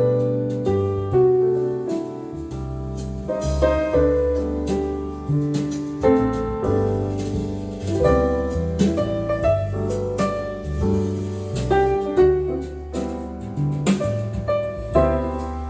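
Piano music with a deep bass line, the low notes held and changing every second or two under struck piano notes.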